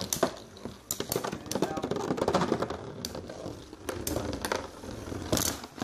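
Two metal Beyblade spinning tops spinning and clashing in a plastic stadium, a fast, irregular rattle of clicks and knocks as they strike each other and the stadium walls.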